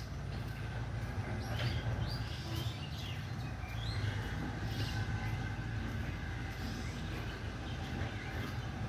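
Outdoor street ambience: a steady low rumble with birds chirping now and then above it.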